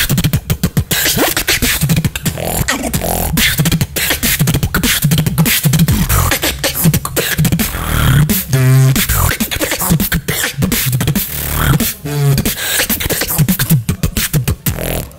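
Solo vocal beatboxing: a fast stream of mouth-made kick, snare and hi-hat strokes over a deep bass line. Twice, about halfway through and again about three seconds later, a short wavering pitched tone cuts in.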